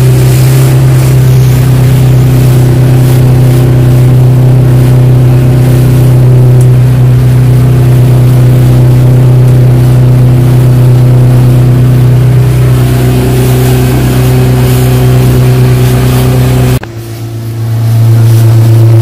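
115 hp Yamaha outboard running steadily at cruising speed, with a loud low drone heard from inside the boat's pilothouse. About seventeen seconds in the sound drops sharply, then builds back over about a second to a slightly lower steady note.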